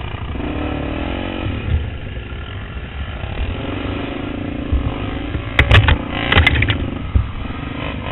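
Honda XR250 Tornado trail bike's single-cylinder four-stroke engine running at low speed with small revs, and a cluster of sharp knocks and clatter a little over halfway through, the loudest sounds here.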